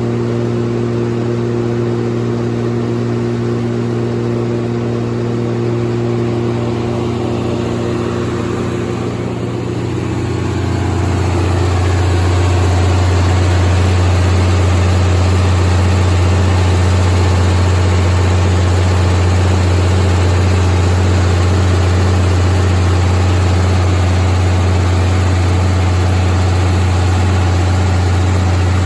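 175 kW Cummins/Onan diesel generator set running steadily. About ten seconds in its low note drops a little and it gets louder and rougher, then runs evenly at that level.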